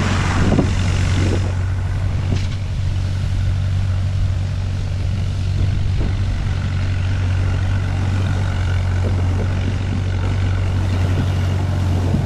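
Tractor engine running at a steady, unchanging drone as it tows a sled over snow, with a steady rushing of snow and wind around the sled.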